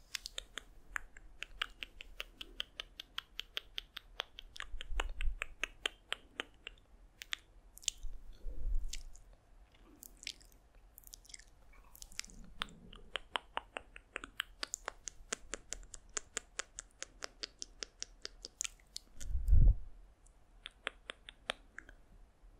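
Close-miked ASMR mouth sounds: rapid wet clicks and smacks, several a second, with a few dull low thumps, the loudest near the end.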